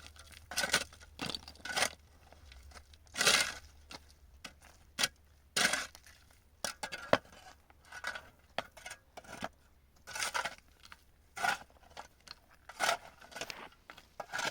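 A series of short, irregular scraping and rustling noises, about one a second, like material being torn or handled.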